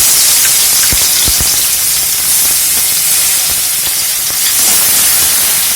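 Chopped tomatoes sizzling loudly in hot oil in a kadai, just added to the pan, with a few light knocks about a second in.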